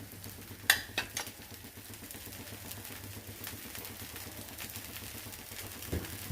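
Dosa frying in oil on a hot griddle, a steady sizzle, with a few sharp metal clinks of a utensil against the pan about a second in and a soft knock near the end.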